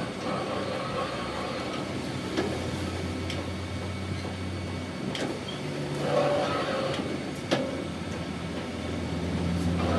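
A machine running with a steady low hum, with a few sharp clicks or knocks.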